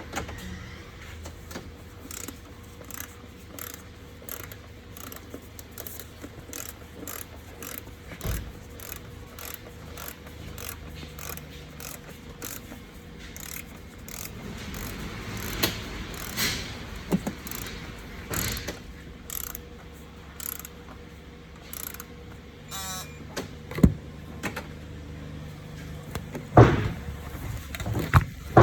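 A Dodge Charger's 3.6-litre V6 running with a steady low hum, over a regular ticking about twice a second. A few sharp knocks and clunks sound near the end.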